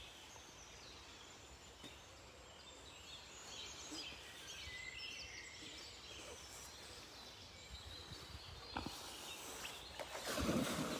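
Small birds singing, many short high chirps and warbles, most of them in the middle stretch, over a steady outdoor hiss. Near the end a brief louder rustle.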